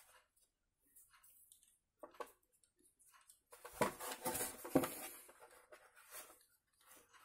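Handling noise of a hard plastic motorbike body panel being moved and turned over on a paper-covered table: scattered light knocks, scrapes and rustles, busiest and loudest for about a second and a half in the middle.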